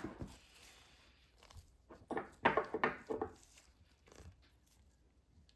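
Short scrapes and clicks from handling orthodontic pliers and stainless steel wire, in a brief cluster about two seconds in and once more near four seconds.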